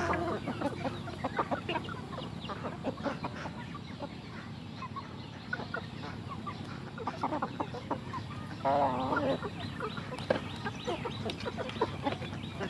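A flock of chickens clucking and calling as they peck at grain in a feeding trough, with many quick taps of beaks on the feed. A longer wavering call comes about nine seconds in.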